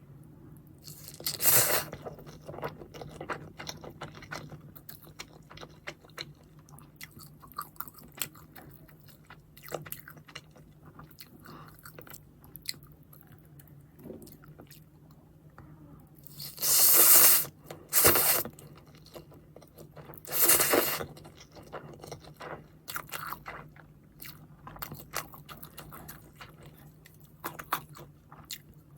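Close-miked eating of crispy fried chicken: steady chewing and small crunches, with four loud crunchy bites, one near the start and three in quick succession past the middle.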